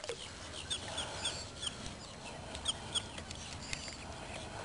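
Faint water sloshing as a largemouth bass is held in the lake by its lip and eased back in, with scattered short high chirps over it.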